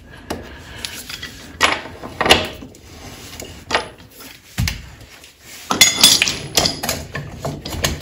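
Metal tools clinking and knocking on motorcycle rear-axle hardware as a socket and breaker bar work the axle nut loose: scattered sharp metallic taps, with a quick run of them about six seconds in.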